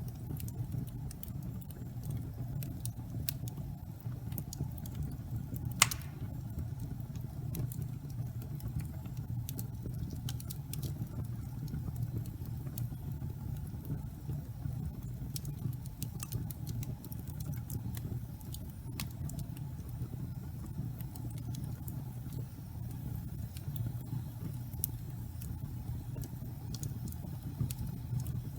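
Wood fire burning: a steady low rumble of flames with frequent small crackles and snaps, and one louder pop about six seconds in.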